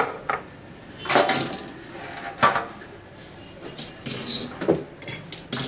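Plastic parts of an electric grill, its moulded base and legs, being handled and set down on a wooden countertop: a few separate knocks and clatters.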